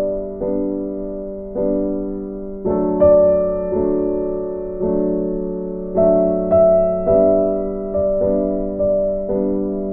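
Background music: a slow piano tune, each note or chord struck and left to fade, about one a second.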